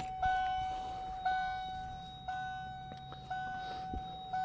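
1993 Ford Mustang's electronic warning chime dinging about once a second, each ding fading before the next, five times.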